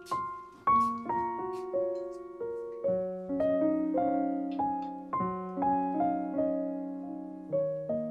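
Piano music: a gentle, unhurried melody of single notes and chords, each struck note fading away before the next, roughly two a second.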